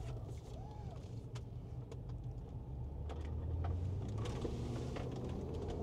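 Cabin hum of a Land Rover LR4 driven at low speed: steady engine and road noise that builds slightly about three seconds in, with a few light clicks.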